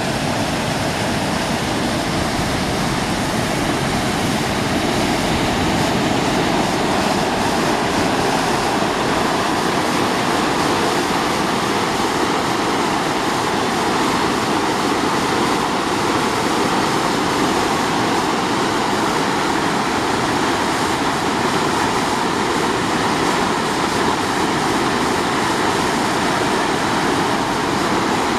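Reservoir inflow water gushing out of a concrete outlet channel into the lake, a loud, steady rush of churning whitewater. It grows a little louder over the first few seconds, then holds steady.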